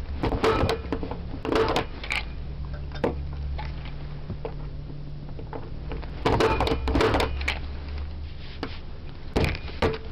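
Punch-down tool snapping as it seats and trims twisted-pair wires into the insulation-displacement slots of a 110 connecting block. There are groups of sharp snaps in the first three seconds, another run from about six seconds in, and a last couple near the end.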